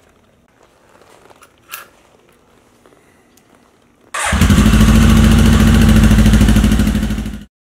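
1980 Honda CB900 Custom's air-cooled inline-four engine fires up about four seconds in and runs loudly with a fast, even beat through its exhausts, then stops abruptly. A few faint clicks come before it.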